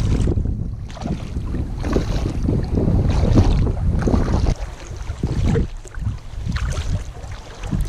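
Wind buffeting the microphone of a camera on a sea kayak's deck, with water splashing and sloshing along the hull as the kayak moves. The wind noise eases a little about halfway through.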